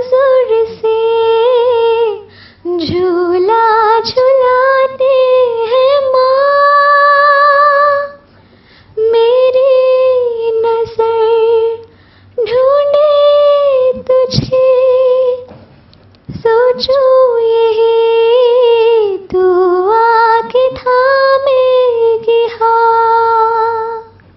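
A woman singing a slow song solo and unaccompanied, in long held phrases with a wavering vibrato and short pauses between them.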